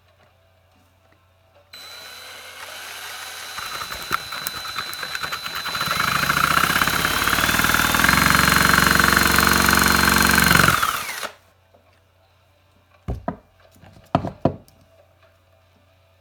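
Electric drill driving a Lego chainsaw mechanism, running for about nine seconds and speeding up in steps, loudest in the second half, then cutting off abruptly. A few sharp clicks follow near the end.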